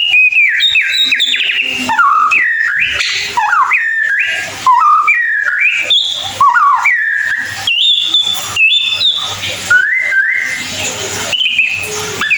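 White-rumped shama singing a long run of clear whistled phrases, with notes sliding and stepping up and down between low and high pitches and short breaks between phrases.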